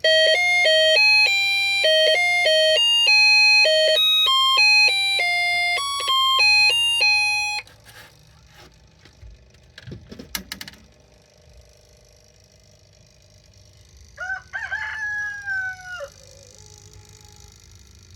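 Snap Circuits burglar alarm's sound chip playing a buzzy electronic melody of quick beeping notes, which cuts off abruptly after about seven and a half seconds. A few faint clicks follow, and near the end a short falling call lasting about two seconds.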